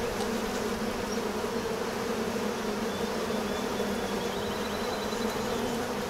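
A colony of honeybees buzzing around an opened hive in a steady, even hum.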